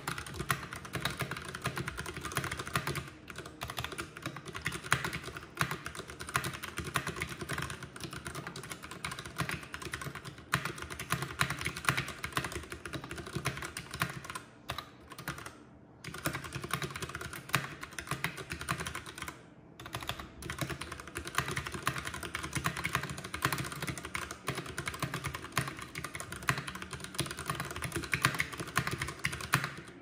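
Keychron K6 mechanical keyboard with Gateron Brown tactile switches being typed on fast and steadily, a run of key clacks broken by a few short pauses.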